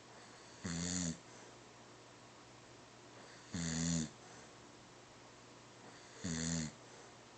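A sleeper snoring in a regular rhythm: three short snores about 2.7 seconds apart, each about half a second long with a slightly falling pitch.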